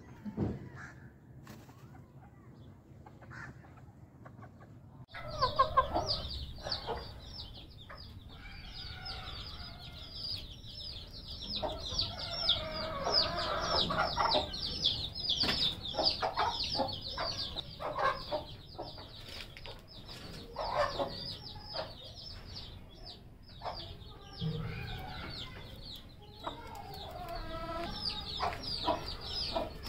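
Aseel chickens clucking on and off, over a dense high-pitched chirping that starts suddenly about five seconds in and keeps on.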